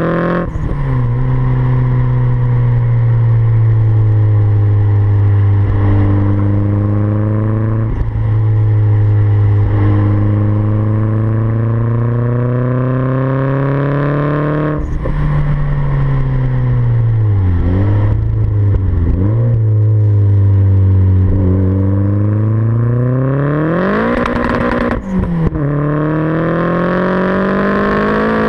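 Exhaust of a turbocharged Renault F7R 2.0 16-valve four-cylinder running under load on a 3-inch exhaust, at about 15 psi boost. The pitch climbs gradually and drops suddenly several times, as at gear changes. About two-thirds through it falls and wavers off the throttle, then climbs steeply near the end with a few sharp breaks.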